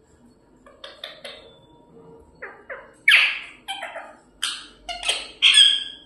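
Pet parrot squawking: a string of about a dozen short, harsh calls, the loudest about three seconds in and again near the end.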